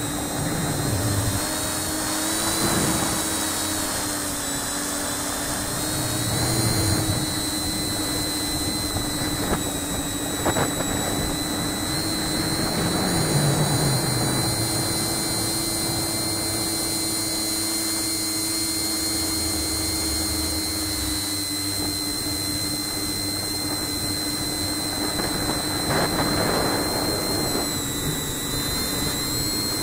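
RCExplorer Tricopter V2.5's brushless motors spinning Graupner 9x5 three-blade propellers, buzzing steadily in flight, the pitch wavering slightly.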